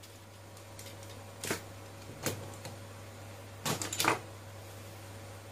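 Hands handling small parts and tools at an opened laptop on a workbench: a few short clicks and light knocks, one about a second and a half in, another just after two seconds, and a quick cluster near four seconds, over a steady low electrical hum.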